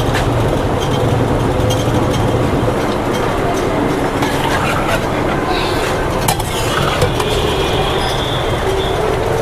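A flat metal spatula stirring thick chicken curry in a large steel kadhai, giving a few sharp clinks and scrapes against the pan, over a steady low rumble.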